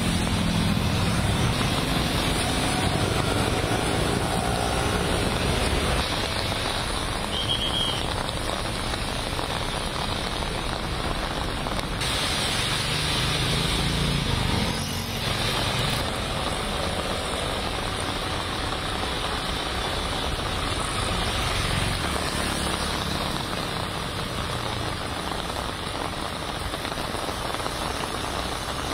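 Road traffic in heavy rain: vehicle engines running under a steady hiss of rain and wet tyres on a waterlogged road, with a short high beep about seven seconds in.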